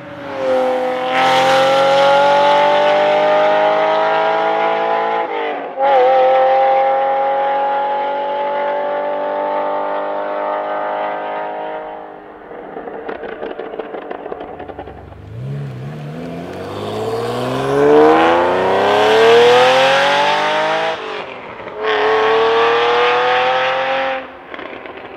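Ferrari Testarossa flat-12 engine through a Fuchs exhaust with race pipes, accelerating hard. Its pitch rises through one gear, shifts about five and a half seconds in, and climbs again. It then crackles and pops off the throttle. A second hard pull rises steeply from low revs, shifts near the end, and lifts off into more crackling.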